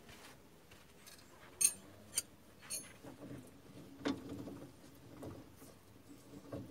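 Sharp metallic ticks, three about half a second apart, then a duller knock about four seconds in and another near the end, from a threaded-rod bushing press being tightened through a long stack of socket extensions and a universal joint. The press is pulling a new upper control arm bushing into its mount on a Dana 30 front axle.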